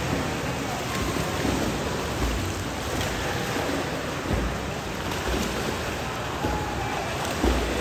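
Several swimmers splashing as they swim lengths of a pool, their arm strokes and kicks churning the water. The splashing makes a steady wash of noise that never lets up.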